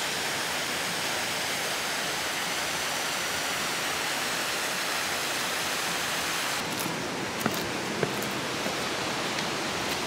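Steady rush of water from a small creek cascading over rocks below a waterfall. A few faint clicks come in near the end.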